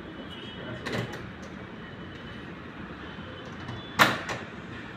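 Sharp clank of a countertop pizza oven's steel door about four seconds in, with a lighter knock about a second in, over the steady fan noise of a kitchen exhaust hood.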